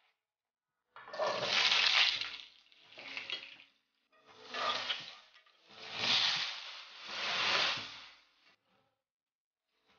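Close-miked sounds of making glutinous rice flour dough by hand: about five swells of rushing, rubbing noise, each about a second long. They are the water going into the flour and the dough being kneaded and pressed.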